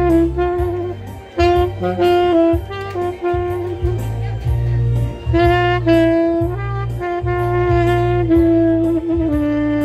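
Saxophone playing a slow melody of held notes, amplified, over a steady bass line and an even beat.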